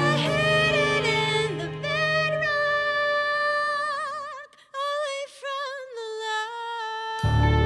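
A woman sings a song with vibrato over a live band. About halfway through, the accompaniment drops away and she sings almost alone. Just before the end, the full band comes back in.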